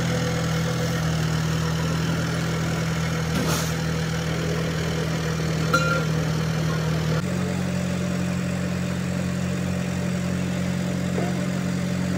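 Diesel engine idling steadily, most likely the crane truck's engine running the crane's hydraulics. Its note shifts slightly about seven seconds in, and there is a light click a little before that.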